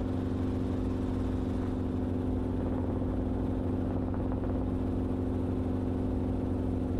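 Enstrom helicopter in cruise flight, heard inside the cockpit: the engine and rotor make a steady drone with several steady tones that holds an even level throughout.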